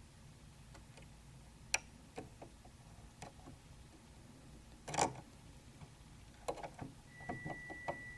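Small scattered clicks and taps of the Brother SE400's thread cutter blade parts being handled and fitted back into the machine, with one louder knock about five seconds in and a quick run of taps near the end. A faint steady high tone comes in near the end.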